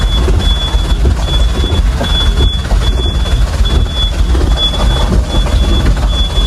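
Inside a vehicle's cab on a rough dirt track: a steady low engine rumble, with a high electronic warning beep from the vehicle repeating about once a second.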